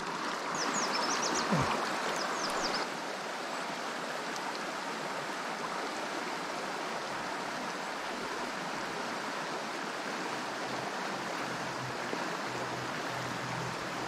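River water running over rocks: a steady rushing wash, a little louder for the first three seconds.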